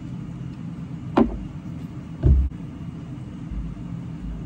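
Two sharp knocks about a second apart as face-paint kit is picked up and handled, the second louder with a dull low thud, then softer low bumps near the end, over a steady low hum.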